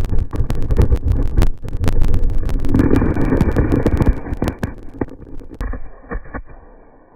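A string of firecrackers going off inside a microwave: many sharp cracks in rapid succession for about five seconds, thinning to a few scattered pops near the end.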